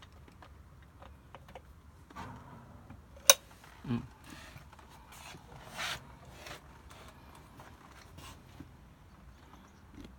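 Handling noise: a single sharp click about three seconds in, followed by several brief rubbing and scraping sounds and a few faint ticks.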